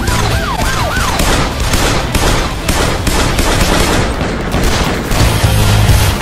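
A police siren yelps briefly at the start, then a gunfight: pistols firing many shots in quick succession.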